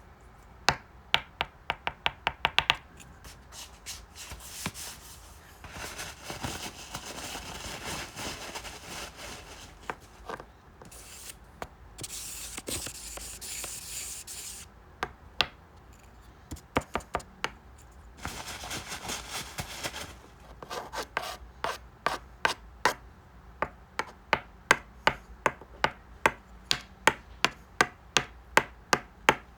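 Quick runs of sharp taps or clicks, several a second, alternating with stretches of rubbing or scraping noise; the taps come thickest near the start and in the last third.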